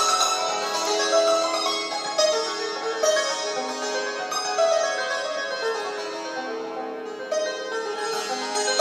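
Persian santoor, a hammered dulcimer, played solo: quick strikes on its metal strings, the notes ringing on and overlapping. The playing softens a little about two-thirds through, then grows louder again near the end.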